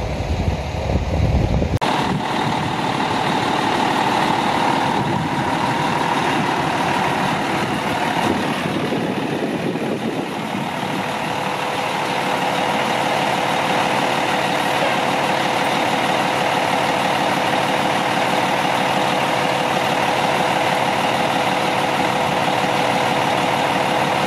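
Parked fire truck's engine idling steadily, an even mechanical hum with a faint steady whine. For about the first two seconds a low rumble is heard instead.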